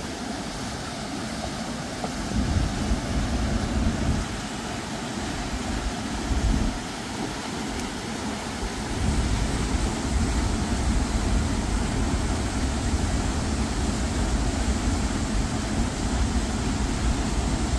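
Steady roar of whitewater rushing out of a dam spillway, with a deeper low rumble that swells a couple of seconds in and stays strong from about halfway on.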